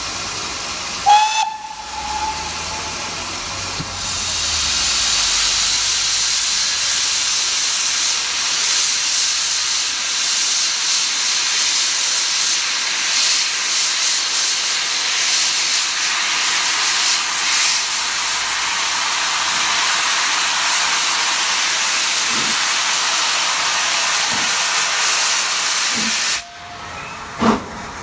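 GWR Castle-class steam locomotive: a brief whistle toot about a second in, then a loud steady hiss of steam escaping from the engine that cuts off suddenly near the end.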